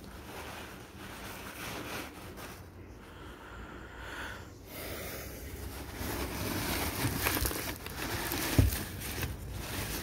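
Paper wrapping rustling and crinkling as paper-wrapped succulents are handled in a cardboard box, with one soft thump near the end.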